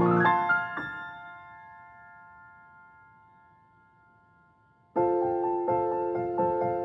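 Background piano music: a held chord rings and fades away, then after a brief near-silent gap a new passage of steady repeated notes starts abruptly about five seconds in.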